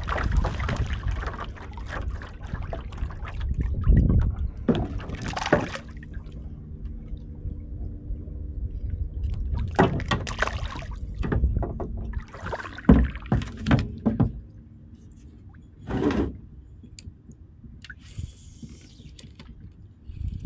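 A small hooked fish splashing and thrashing at the surface beside a kayak as it is fought and lifted from the water, in several separate bursts of splashing and dripping water.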